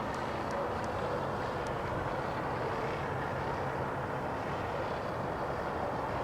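FreeWing P-51D Mustang electric RC warbird in flight, at about three-quarter throttle: a steady drone from its propeller and onboard engine sound module.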